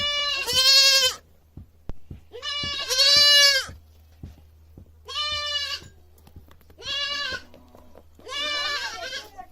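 A goat bleating loudly five times, each call about a second long with a strong, high-pitched wavering tone; the first two calls are the loudest.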